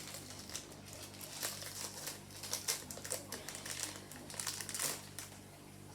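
Foil wrapper of a Pokémon card booster pack crinkling and crackling irregularly as it is handled and torn open.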